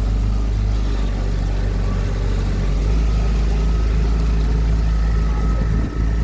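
Motorboat engine running steadily, with a brief dip in loudness near the end.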